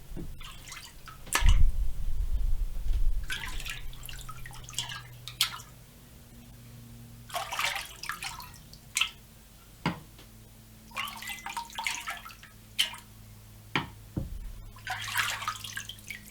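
Aluminium part being washed by hand in a tank of distilled water: irregular splashing and dripping, with a heavier slosh about a second and a half in, over a faint steady hum.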